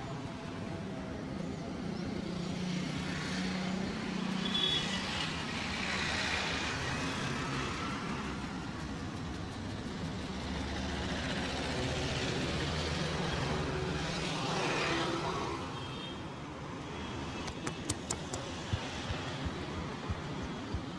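Road traffic noise: vehicles running and passing by, with a steady low hum. Near the end comes a quick run of sharp clicks or taps.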